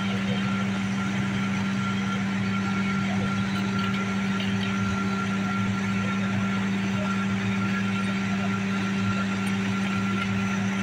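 Fire engine's engine running steadily, an even hum that holds one pitch with no revving.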